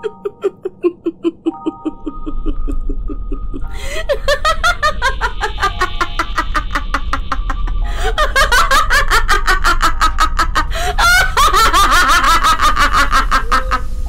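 A voice-acted monster laughs sinisterly, a steady rhythmic chuckle that about four seconds in breaks into loud, layered cackling and grows louder toward the end. Eerie music with sustained notes and a low rumble plays under it.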